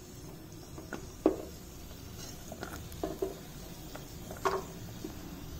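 Light taps and scrapes of a wooden spatula in a pan of hot ghee as fried cashews are scooped out: about half a dozen short knocks, the sharpest a little over a second in.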